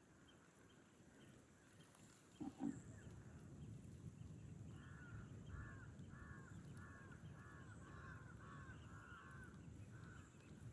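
A bird calling in a rapid series of short repeated calls, about two a second, over a faint low rumble; a couple of seconds in, two short louder low sounds.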